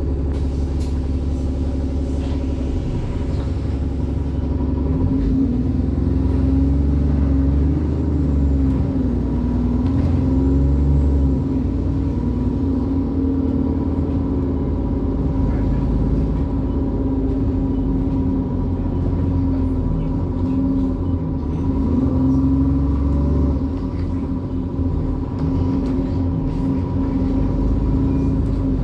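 Alexander Dennis Enviro 400 double-decker bus engine running under way, a steady drone that rises and falls with load, with the turbocharger's steady high whine over it.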